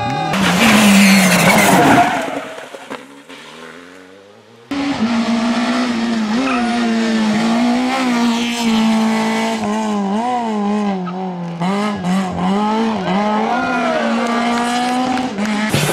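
Rally car engines at high revs, in clips cut together. First a loud rush of car noise, then an engine note falling away. After a sudden cut, one engine is held near a single high pitch for about ten seconds, dipping briefly several times.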